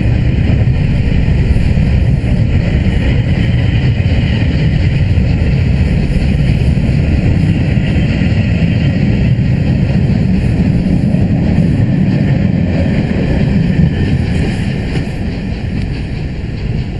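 Railway carriages rolling past close by: a loud, steady rumble of steel wheels on rail that eases off near the end as the last coach draws away.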